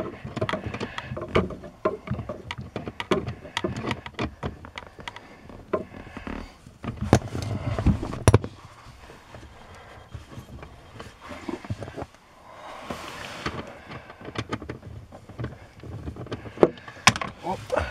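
Ratchet and 10 mm socket clicking and tapping as the lower mounting bolt of a throttle pedal position sensor is backed out, with a brief rustle about two-thirds of the way in.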